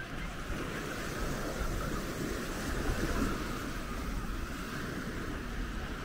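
Surf washing onto the beach in a steady wash, with wind buffeting the microphone in a low rumble.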